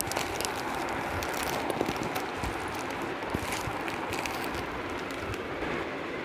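Steady background hiss with faint rustling and light clicks as a fabric makeup brush roll is untied and unrolled and its brush handles knock together.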